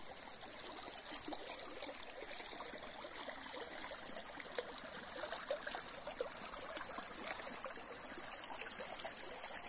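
Small river flowing steadily, its water babbling and trickling over the shallow bed, with many small splashes.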